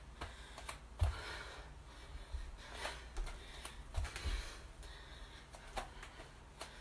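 Feet thudding on an exercise mat as a person steps in and out of lunges, a dull thud every second or two, with heavy breathing between the steps.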